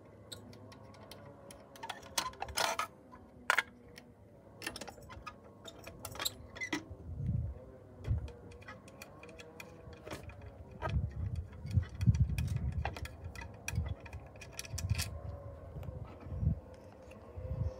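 Light metal clicks and clinks from a Mamod toy steam traction engine being handled, its canopy lifted off and its flywheel turned by hand. Dull low thumps come in the second half.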